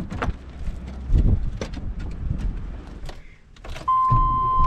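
Clicks and knocks of someone getting into a vehicle, with keys jangling; about four seconds in, a steady high warning beep sounds and the engine starts with a low steady rumble.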